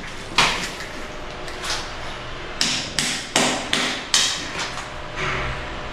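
Hand hammer chipping at a tiled masonry bathroom wall: sharp, irregular knocks, each with a brief ring, with a quick run of five blows between about two and a half and four seconds in.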